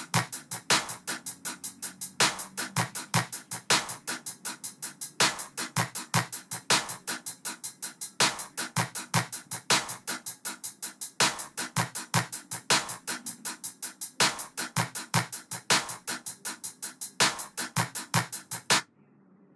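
Programmed trap drum beat from FL Studio: a fast run of hi-hat and snare hits over kick drums, stopping suddenly near the end.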